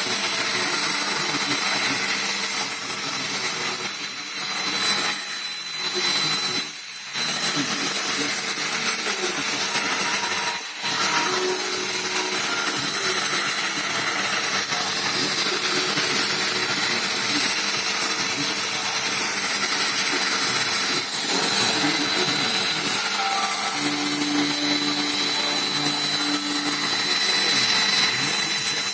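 Vacuum cleaner running steadily with a high-pitched motor whine and rushing air, the sound dropping away briefly a few times.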